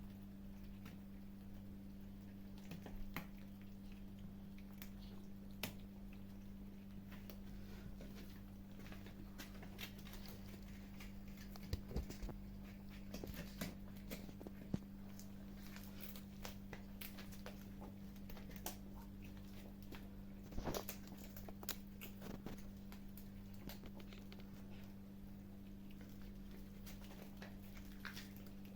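Kittens eating, with scattered faint clicks and crunches of chewing over a steady low electrical hum.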